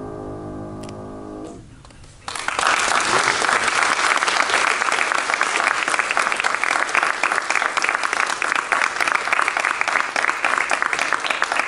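The last chord of the fugue on a grand piano dies away, and after a short pause the audience applauds: dense, steady clapping from about two seconds in.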